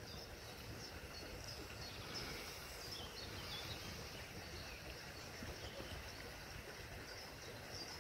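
Faint outdoor ambience: small birds chirping in the distance over a low, uneven rumble.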